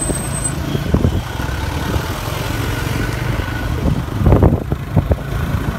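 Motorcycle engine running steadily while riding, with road noise; briefly louder a little past four seconds in.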